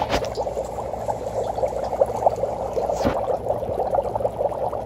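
Dry ice bubbling vigorously in a metal bowl of water, a steady dense fizzing and gurgling as the carbon dioxide sublimes, with one soft knock about three seconds in.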